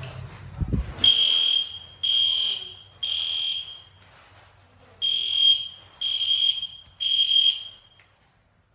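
Fire alarm sounding a high-pitched beep in the temporal-three evacuation pattern: three half-second beeps a second apart, a pause, then three more. The beeping starts about a second in, just after a low thump.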